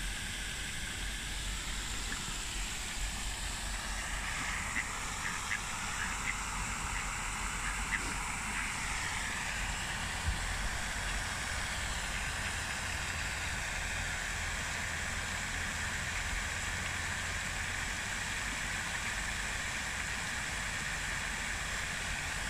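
Pond fountain's water falling and splashing into the pond, a steady hiss over a low rumble, with a few faint high ticks a few seconds in.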